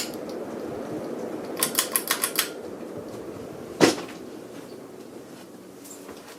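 Designhouse Millbridge ceiling fan running with a steady hum that fades over the last two seconds. A quick run of five light clicks about one and a half seconds in, and one sharper click about four seconds in.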